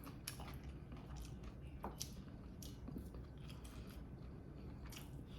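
A person chewing food close to the microphone: faint, irregular wet mouth clicks and smacks, a few each second.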